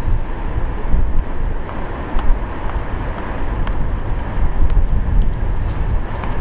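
Wind rushing and buffeting over the camera microphone in flight under a paraglider, a loud steady low rumble.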